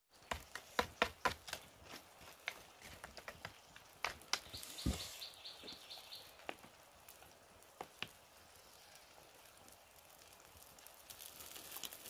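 Sharp clicks and light taps of chopsticks and a spoon against mussel shells and a bowl over a wood fire, thickest in the first two seconds and sparser after. A short high steady tone sounds about four to six seconds in.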